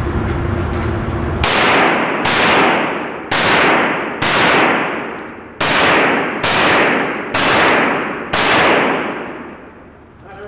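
Eight handgun shots, the first about a second and a half in, spaced roughly half a second to two seconds apart. Each shot rings out with a long echoing tail from the indoor range's concrete walls.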